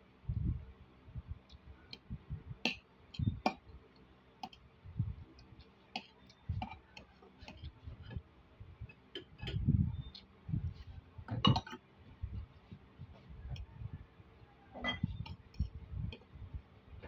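Metal spoon and fork clinking and scraping against a ceramic plate of rice in small irregular clicks, with soft low thuds between them and one sharper clink a little past halfway.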